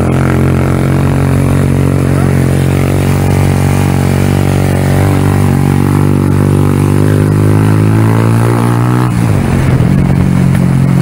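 Small road motorcycle's engine running under way, its pitch climbing gradually from about halfway in, then turning rough and uneven about nine seconds in.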